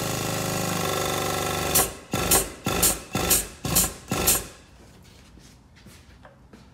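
The pump of a Celette frame machine's puller, drawing a chain to pull out a crash-damaged car sill. It runs with a steady buzz for about two seconds, then works in six separate strokes about twice a second before going quiet.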